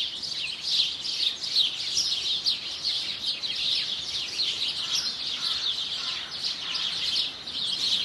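Small songbirds chirping together in a dense, steady chorus of quick high chirps, with a few lower notes mixed in near the middle.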